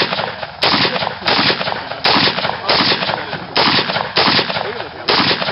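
A 10.5-inch AR short-barrelled rifle firing about eight semi-automatic shots at a steady pace, under a second apart, through an SD2010 suppressor. Each shot is a sharp report with a short tail.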